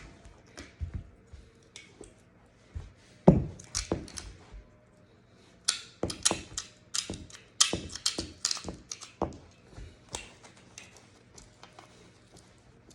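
Hard objects being handled on a table, most likely a Smith & Wesson M&P 9mm pistol and its cleaning gear: scattered clicks and knocks. There is a heavier thunk about three seconds in, then a quick run of sharp clicks over several seconds that thins out near the end.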